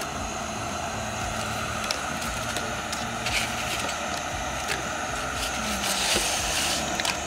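Large aluminium pot of water at a rolling boil, a steady bubbling rush, as squares of xəngəl dough are stirred in with a long spoon. A few light clicks come through, and a brief splashy burst near the end.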